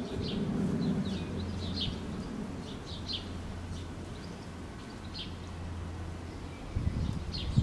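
European robin fledglings calling from cover: a series of short, high, slightly falling calls, irregularly spaced at about one a second, over a low steady rumble.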